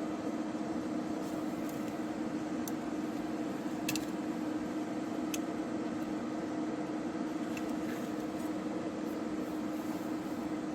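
Steady machine hum, like a small fan or motor running, with a few faint light clicks.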